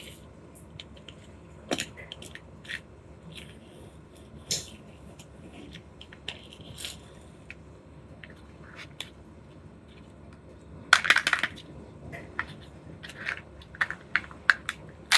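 Small plastic candy and toy packaging being handled and opened: scattered light clicks and taps, with a louder cluster of rustling clicks about eleven seconds in.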